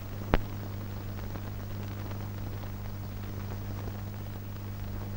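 Steady low hum and hiss of an old film soundtrack, with a single sharp click about a third of a second in.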